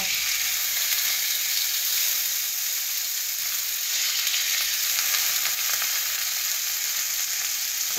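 Salmon steaks searing in hot oil in a frying pan, a steady sizzle while the fish is browned on all sides.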